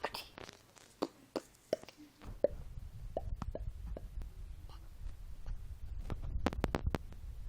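Scattered small clicks and knocks, irregular and spread throughout, over a low rumble that starts about two seconds in.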